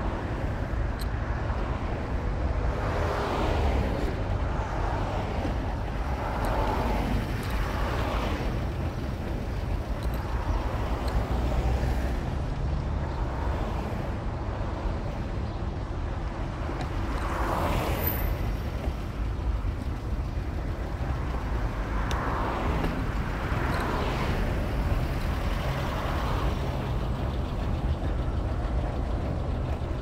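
Wind buffeting the microphone: a steady low rumble, with a fainter wash of sound above it that swells and fades every second or two.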